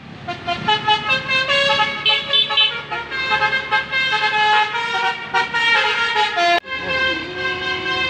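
Telolet basuri multi-tone musical bus horn playing a melody of held notes, several tones sounding together and stepping from note to note. It breaks off suddenly about six and a half seconds in, and a lower held horn tone follows.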